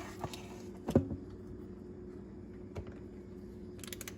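Light clicks and taps of a batter scoop against a mixing bowl and muffin cups while batter is portioned out. The loudest tap comes about a second in, and there is a quick cluster of clicks near the end, over a faint steady hum.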